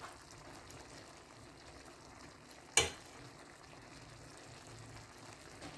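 Faint, steady simmer of a menudo stew of pork and beans in a stainless steel pot, with a metal spoon clinking once against the pot a little under three seconds in.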